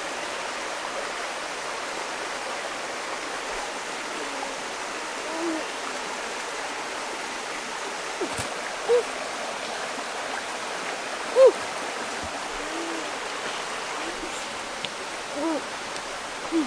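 Small rocky stream running steadily over stones. A few brief, higher tones come and go over it, the loudest about two thirds of the way through.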